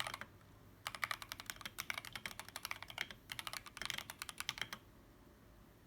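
Akko 3084 v2 mechanical keyboard, caseless, with stock Akko Jelly Black linear switches, typed on quickly in two runs of keystrokes. The typing stops for roughly the last second.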